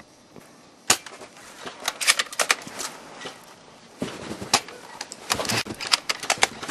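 Airsoft guns firing: a single sharp shot about a second in, then rapid strings of shots around two seconds in and again near the end.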